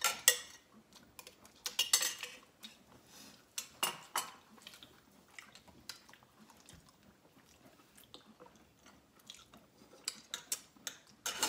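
Metal spoon clinking against ceramic bowls and plates while eating, in scattered sharp clinks: a few near the start, about two and four seconds in, and a quick run near the end, with quieter chewing between.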